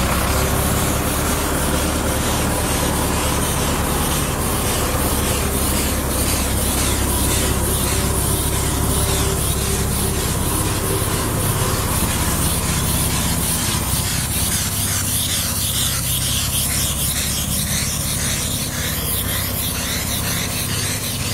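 A tractor engine running steadily under a continuous hiss of paint spraying from a hose-fed spray wand onto a curb.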